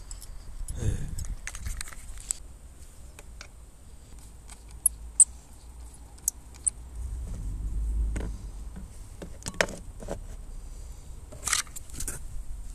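Small metallic clinks and sharp clicks of spanners and fittings being worked at a motorcycle's tyre valve. A low rumble swells and fades partway through.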